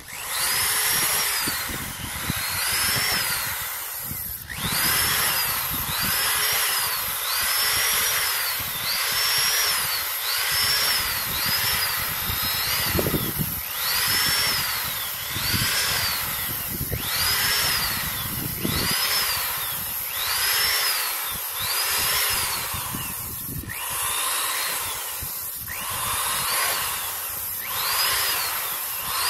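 Corded electric drill boring holes through a thin plastic bottle for a crawfish trap. The motor spins up and winds down again about every second and a half as the trigger is squeezed and released.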